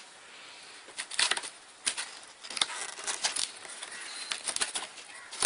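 Hands handling and opening a cardboard box: a run of short scrapes, taps and rustles of cardboard, coming in clusters.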